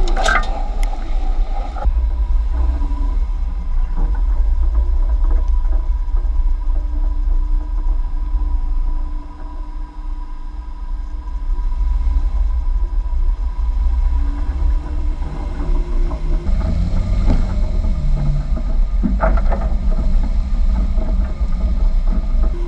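Jeep driving over a dirt off-road course, heard from a camera mounted low on the outside near the front wheel: a steady heavy low rumble of the vehicle and its run over the ground, easing for a couple of seconds around the middle, with a few short knocks.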